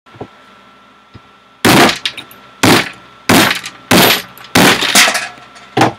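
A claw hammer striking a wooden board, with six heavy blows starting about a second and a half in, roughly one every second or less, each a sharp crack with a short ring. It is smashing small plastic Mega Bloks figures.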